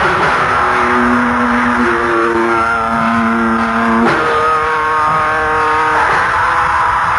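Lo-fi black metal demo recording: heavily distorted guitars playing a slow riff of held notes that change every second or two, buried in a dense, fuzzy wall of noise.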